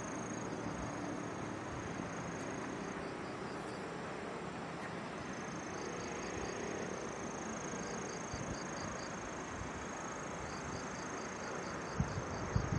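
Insects trilling in late summer: a steady high-pitched buzz with a softer chirp pulsing about four times a second, over a steady background hiss. Near the end, wind starts buffeting the microphone.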